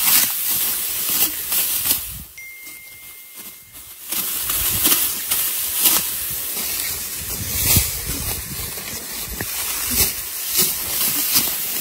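Dry rice stalks rustling and swishing as they are gathered and cut by hand at the base, with a crisp stroke every second or so and a quieter lull about two seconds in.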